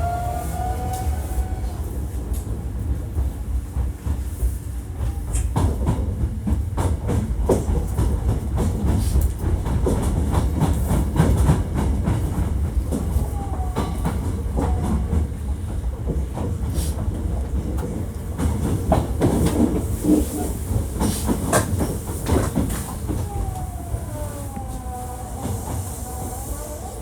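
Hankyu 1300 series electric train running, heard on board. The Toyo IGBT VVVF inverter's tones glide upward at the start as it accelerates, and the wheels clatter over rail joints and points through the middle. Near the end the inverter tones sweep back down as the power eases off.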